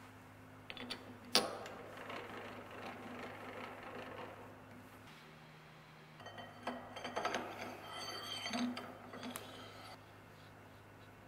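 Steel round bar stock sliding through a lathe's spindle bore into a three-jaw chuck: metal scraping and clinking, with a sharp clink about a second and a half in and a clattering run of knocks from about six to nine and a half seconds in. A steady low hum sits underneath.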